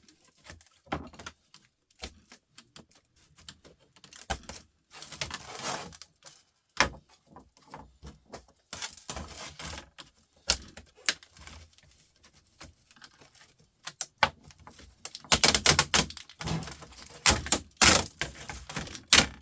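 Laptop parts being taken apart and sorted by hand: plastic and metal pieces clicking, rattling and scraping, with the busiest clatter near the end.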